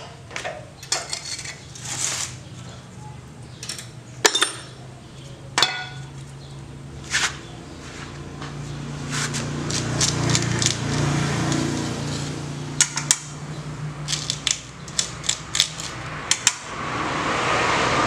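Scattered metal clinks and taps as hand tools and small engine parts are handled against a metal parts bowl and the bare engine block of a dismantled Honda GX160, with a steady low hum underneath.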